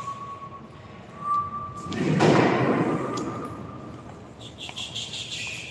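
Metal handling noises from a manual rotary screen printing press being assembled: a faint squeak-like tone early, a louder scrape lasting about a second two seconds in, and light clicks near the end.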